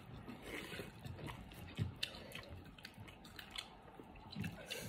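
A person eating with her fingers: quiet chewing with scattered small clicks and smacks.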